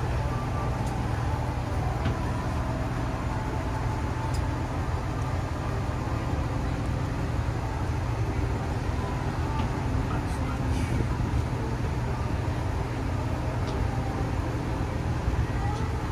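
Shuttle bus running: a steady low rumble of engine and road noise with no change in level, and a few faint clicks over it.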